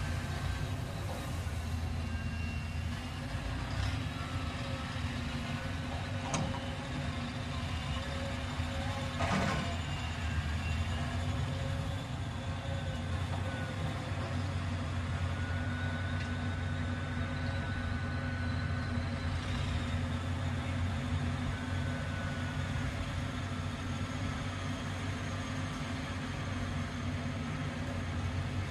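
Caterpillar hydraulic excavator's diesel engine running steadily while it digs, with two sharp knocks about six and nine seconds in.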